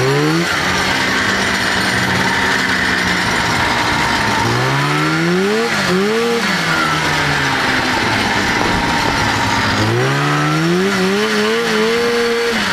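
1989 Arctic Cat Jag AFS snowmobile's two-stroke engine under way. It revs up about half a second in, rises and dips twice between about five and seven seconds in, and climbs again near the end, holding steady in between. It runs cleanly with the hand warmers switched off.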